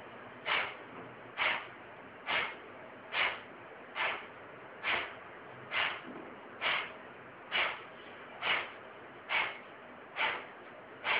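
Kapalbhati breathing: a steady run of short, forceful exhalations through the nose, a little more than one a second, with the inhalations passive and barely heard between them.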